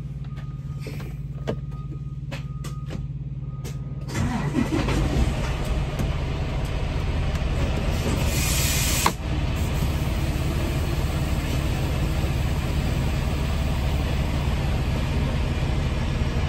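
A semi truck's engine running steadily, becoming much louder and fuller about four seconds in. A short burst of hiss comes around eight seconds in, followed by a sharp click.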